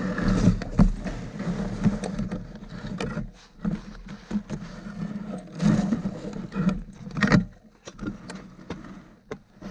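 Dog sled moving over packed snow: the runners scrape steadily, with scattered knocks and creaks from the sled. The scraping thins out about three seconds in, leaving short intermittent knocks and bursts of scraping.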